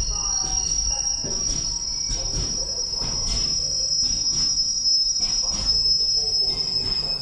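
Container freight train's loaded flat wagons rolling past: a low rumble with a steady high-pitched wheel squeal, and repeated sharp knocks from the wheels as the wagons go by.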